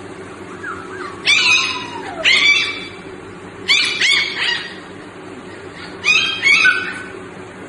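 Husky puppies yipping and giving little howls: short high-pitched calls in three bouts of two or three calls each, about two seconds apart, the first sliding down in pitch.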